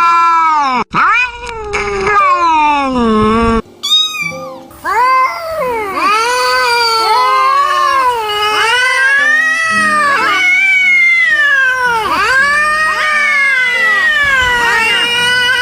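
Angry cats yowling: long, drawn-out wavering howls that rise and fall in pitch. After a brief break about four seconds in, the calls run on without pause and overlap one another.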